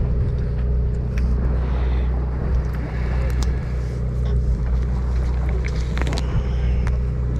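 A party boat's engine running with a steady low hum, and a few light clicks over it.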